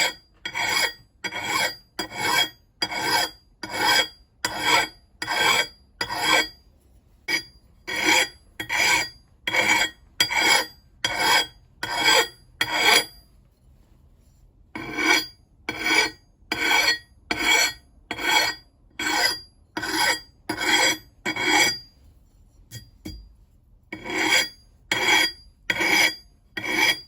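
Fine-cut hand file drawn across the steel edge of an axe head in rhythmic scraping strokes, about two a second. It stops briefly about 7 seconds in, pauses for nearly two seconds about halfway, and pauses again near the end.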